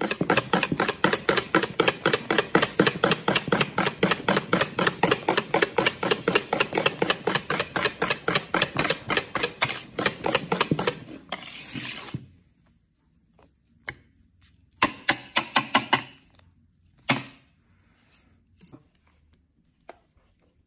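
Wire balloon whisk beating cake batter in a plastic bowl, fast even strokes about five a second for some twelve seconds. A shorter burst of whisking follows a few seconds later, then a single sharp tap.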